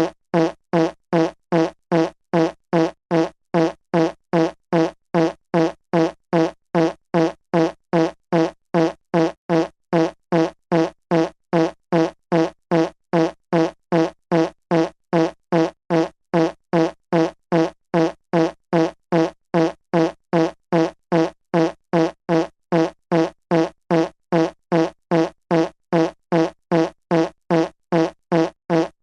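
Fart sound effect repeated over and over: short, identical pitched blasts, about two a second, each with the same low buzzy pitch.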